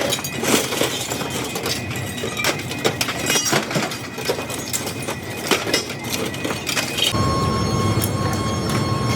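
Irregular metallic clanks and knocks over a steady industrial din of factory machinery. About seven seconds in, this gives way to a steady machine hum with a constant high whine.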